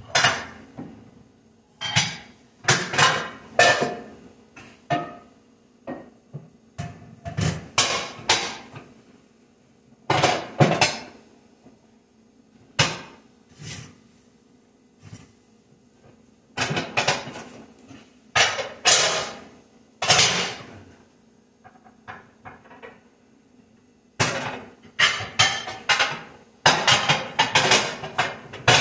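Kitchen clatter: irregular knocks, clinks and bangs of dishes, utensils and cabinet doors being handled at a counter, coming in clusters with short pauses between.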